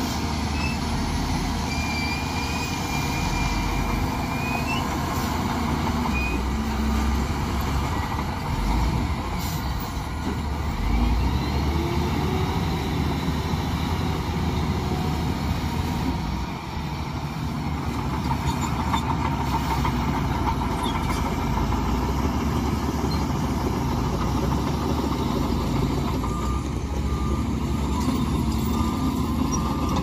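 Wheel loader's diesel engine running steadily under load as it works rock fill at the water's edge.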